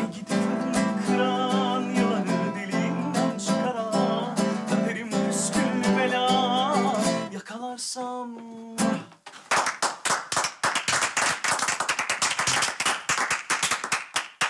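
A man sings a slow song with a wavering voice over a strummed acoustic guitar; the song ends on a held note about nine seconds in. Applause follows for the rest.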